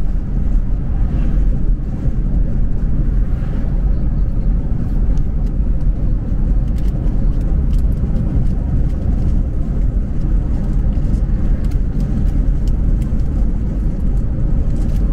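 A car driving on the road: a loud, steady low rumble of road and engine noise.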